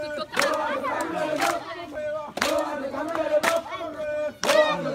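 A crowd of men chanting and shouting together, punctuated by sharp cracks roughly once a second.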